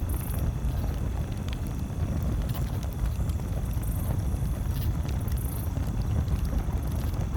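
Campfire crackling, with a few faint sharp pops over a steady low rumble. Short high-pitched buzzy patches sound three times.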